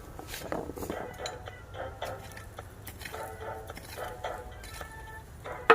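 Intermittent light metallic clinks and scrapes of a hand tool digging in garden soil.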